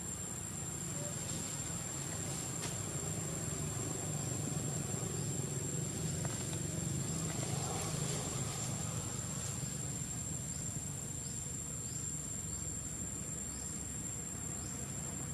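Steady high-pitched insect drone, with a low engine rumble that swells around the middle and fades again.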